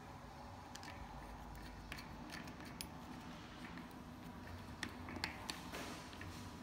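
Scattered light clicks and taps of hard plastic and metal as a plastic baby seat and its pivot knob are worked onto the wire frame of a metal shopping trolley, a few sharper clicks coming about five seconds in.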